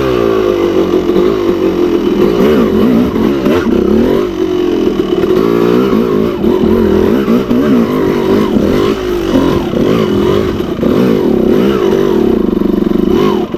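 Enduro dirt bike engine running hard under load, its revs rising and falling continuously as the rider works the throttle through a rough trail obstacle.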